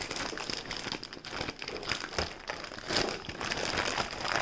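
Plastic Ziploc bag crinkling and rustling irregularly as short ribs are kneaded inside it with a thick sauce marinade.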